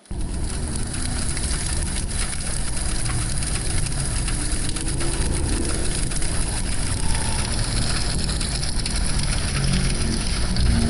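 Fire sound effect: flames burning with a steady low rumble and dense, continuous crackling.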